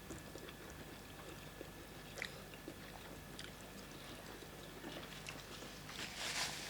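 Faint eating sounds from people chewing pounded yam and vegetable soup: a few soft scattered mouth clicks, and a soft breathy swell near the end.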